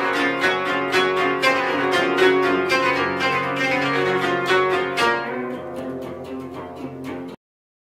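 Koto, the 13-string Japanese zither, played in a quick run of plucked notes. It grows quieter over the last couple of seconds and cuts off suddenly near the end.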